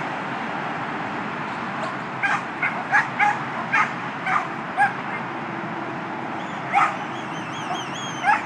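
A dog barking in short, sharp yips: a quick run of about eight in the first half, then two more later, over the steady hum of freeway traffic.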